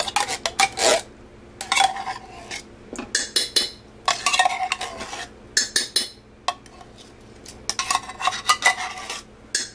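Spoon scraping and clinking inside a metal can, scooping out thick condensed cream of celery soup, in several short bouts of quick strokes with brief pauses between them.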